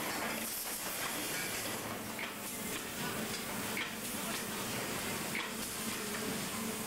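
Steady factory-floor machinery noise in an exhaust-pipe plant: a constant hiss over a low hum, with a few faint clicks about two, four and five and a half seconds in.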